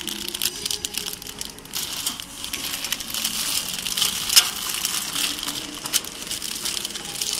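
Crinkling and crackling of clear plastic wrapping film as machine-sealed packs of plastic cutlery are handled, with one sharp snap about four seconds in.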